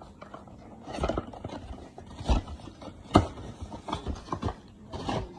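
Packaging of a Bluetooth phone stand being opened and handled: irregular clicks, knocks and rustles, the sharpest about three seconds in.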